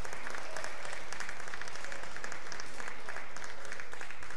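Audience applauding: a steady, dense patter of hand claps.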